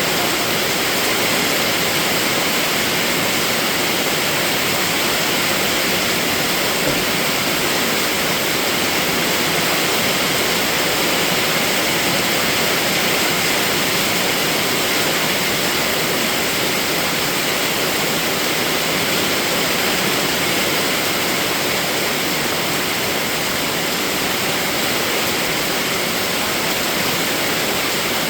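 Steady heavy rainfall: a dense, even hiss of rain with no separate drops or pauses.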